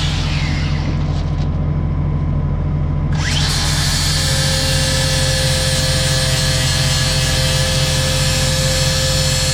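Power grinder with a flap wheel sharpening a steel rotary-cutter blade. Its high grinding noise drops out for about two and a half seconds, then comes back with a rising whine as the wheel bites again, and it grinds steadily after that over a constant low hum.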